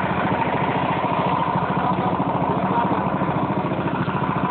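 A small boat's engine running steadily at cruising speed, with an even pulsing beat.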